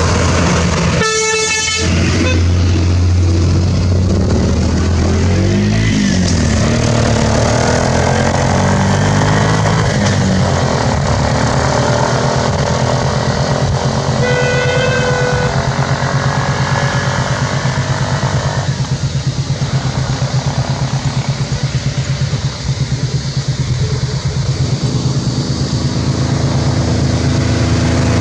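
Bus diesel engine idling steadily close by. A vehicle horn toots briefly about a second in, and a second, higher horn sounds briefly around 14 seconds in.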